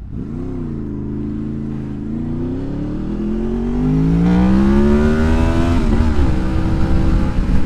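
Honda VFR's V4 engine accelerating under throttle: revs jump at the start, then climb steadily for about four seconds before dropping sharply with an upshift about six seconds in, and the engine pulls on in the higher gear.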